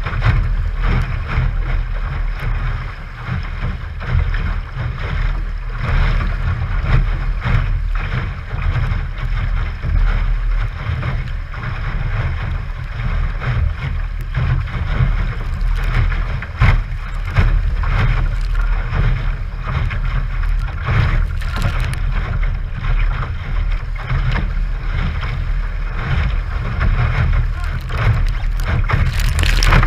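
Water rushing and slapping against the hull of a small sailboat under way, with frequent sharp splashes, over a heavy low rumble of wind buffeting the microphone.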